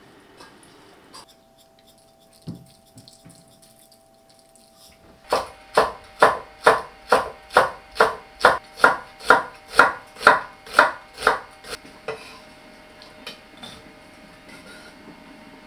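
Kitchen knife slicing a large green onion (daepa) on a camphor-wood cutting board: about sixteen even chops, roughly two and a half a second, starting a few seconds in and stopping about three-quarters of the way through.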